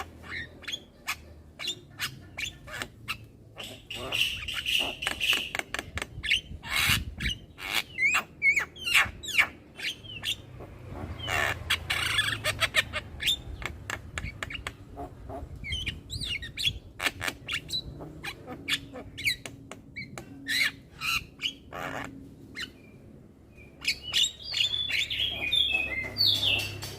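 Young Javan myna chattering without a break: a rapid string of harsh squawks, sharp clicks and short whistled notes.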